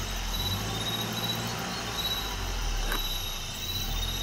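Night insects, crickets among them, chirping in a repeating pattern over the steady low hum of an idling vehicle engine, with a single brief click about three seconds in.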